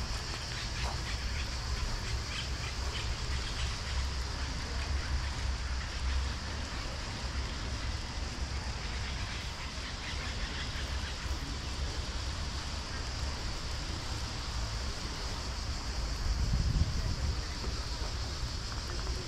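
Outdoor park ambience heard from a moving bicycle: a steady hiss with a gusting low rumble of wind on the microphone, and faint chirps over it.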